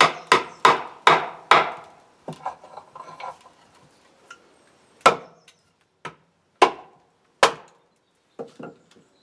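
Wooden club striking the back of a froe blade, driving it down into a birch log to rive off a board. A quick run of about five sharp blows, a few lighter knocks, then single heavier blows about a second apart.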